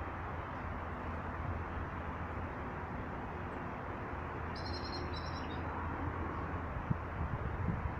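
A small bird calls once, a quick run of high notes lasting about a second, a little past the middle, over a steady low background rumble.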